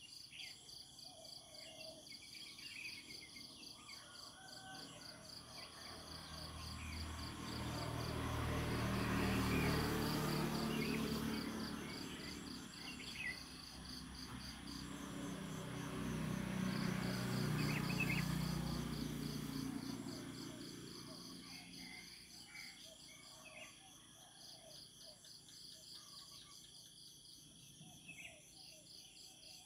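Insects chirping in a steady pulsing rhythm, with a few short bird chirps. A low rumble swells up and fades away twice in the middle, louder than the insects.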